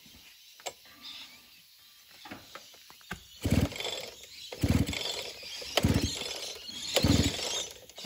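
Small two-stroke engine of an old mini bike being pull-started without firing. From about three and a half seconds in there are four quick pulls on the recoil starter, about a second apart, each a short whirr of the engine turning over. It will not catch because no fuel is reaching it.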